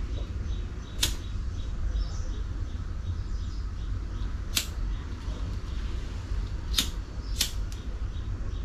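Four sharp clicks over a steady low hum: one about a second in, one about halfway, and two in quick succession near the end.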